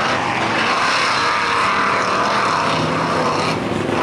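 Lifted Chevy mud truck's engine running hard at high revs as it churns through a mud pit, its tires flinging mud and water in a steady loud rush. The sound briefly dips near the end.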